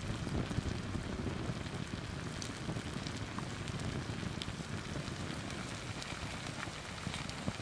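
Wood fire burning around a cast-iron pan, with scattered sharp crackles over a steady low rushing. The cream of a potato dauphinoise bubbles and sizzles in the pan.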